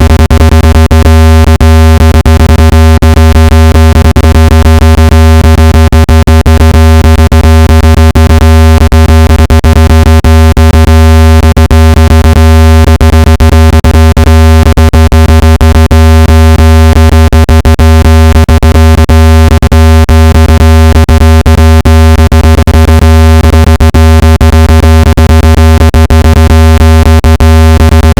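Speaker-cleaning tone: a loud, steady, low electronic buzz with many stacked overtones and frequent clicks, made to vibrate a phone speaker and shake out dust and moisture.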